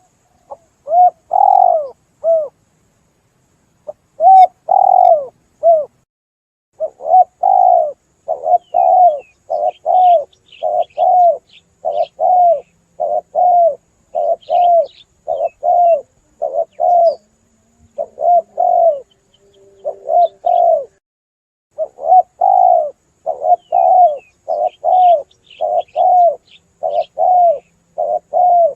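Spotted dove (tekukur) cooing: a long run of low coo notes repeated at an even pace, with a few short pauses between phrases. This is the call played as a lure to draw doves in. Faint high chirps of small birds sound behind it.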